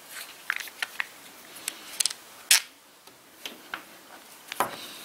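Plastic foregrip parts and small screws clicking and tapping as they are handled and set down on a wooden table: a string of sharp clicks, loudest about two and a half seconds in, with a duller knock near the end.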